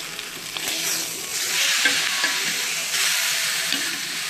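Ribeye steak sizzling in a hot cast-iron grill pan as it is turned over with metal tongs. The sizzle gets louder about a second and a half in, once the unseared side is down on the hot ridges.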